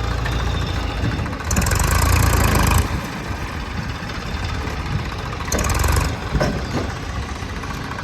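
Diesel engine of a JCB 3DX backhoe loader running while it works, rising in level twice: once for over a second about a second and a half in, and again briefly about five and a half seconds in.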